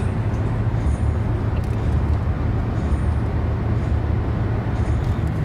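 Steady road noise of a car on the move, heard from inside: an even low rumble with a hiss above it.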